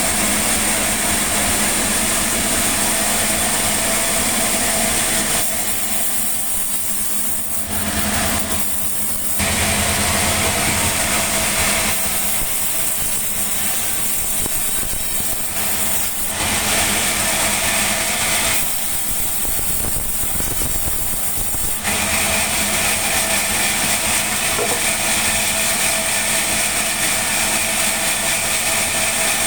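Sawmill machinery running steadily with a constant whine. Its sound changes for a few seconds at a time in three or four stretches, going deeper and less hissy before returning.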